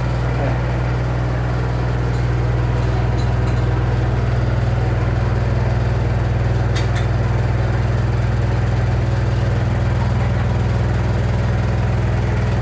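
Washer-dryer running with a loud, steady low drone and a fast rattle, a noise the repairman treats as a fault: the machine is shaking all over. A few faint clicks come through about two and seven seconds in.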